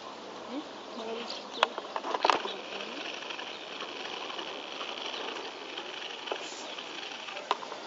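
Outdoor ambience with a few sharp clicks, the loudest cluster about two seconds in, and a steady high-pitched buzz through the middle.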